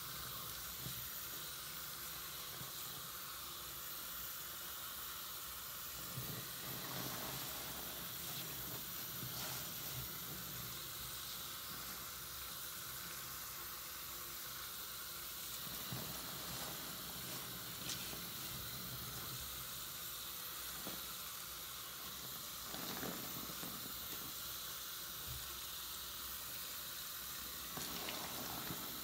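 Soapy sponge squeezed and worked in a sink of foamy lather, giving soft wet squishes every few seconds over a steady hiss of running tap water and fizzing foam.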